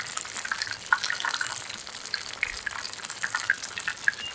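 Oil in a frying pan sizzling with light, irregular crackles.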